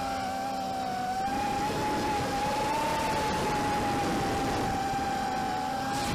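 ZMR250 racing quadcopter's Cobra 2208 2000kv brushless motors and propellers running with a steady high whine that wanders slightly in pitch. The owner is troubleshooting little hiccups the quad has recently developed.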